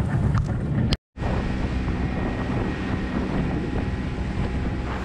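Fishing boat's motor running under way, with wind buffeting the microphone. The sound cuts out for a moment about a second in.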